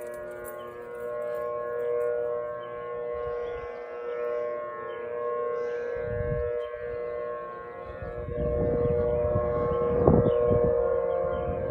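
Several outdoor warning sirens, among them Thunderbolt, P-15, P-10 and EOWS models, sounding together as a steady multi-tone wail. A low rumble comes and goes about halfway through and again toward the end.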